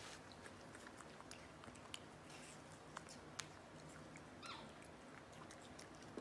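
Faint wet smacking and clicking of a capuchin monkey chewing watermelon, with one brief high squeak about four and a half seconds in.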